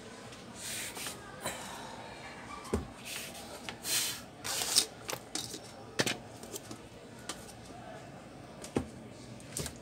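Ace LED-808 32-inch LED TV being turned over on a workbench: its plastic case and panel scrape and rustle against the bench and hands, with several sharp knocks as it is set down.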